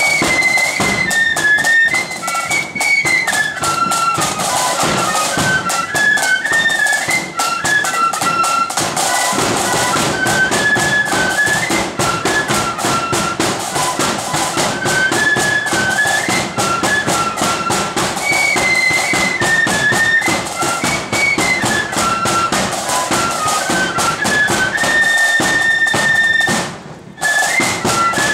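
Blood-and-thunder marching flute band playing a tune in unison on flutes over steady march drumming. Near the end the tune holds one long note and breaks off briefly before starting again.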